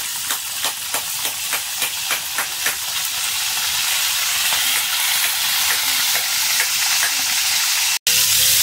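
Food sizzling in hot oil in a pan while being stirred, with sharp utensil clicks against the pan about three times a second for the first few seconds. After that comes a steady, slightly louder sizzle, which drops out for an instant near the end.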